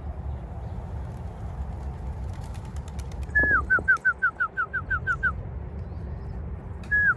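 A songbird singing: one held whistled note that drops into a quick run of about ten short, falling whistled notes, heard twice, the second time starting near the end. A steady low rumble runs underneath.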